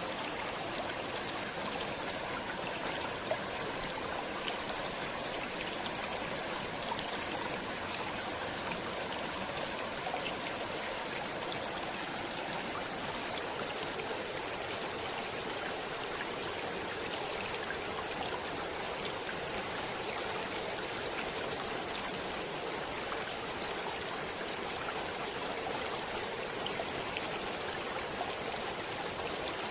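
A stream running steadily over rocks, an even rushing of water with small splashes and trickles through it.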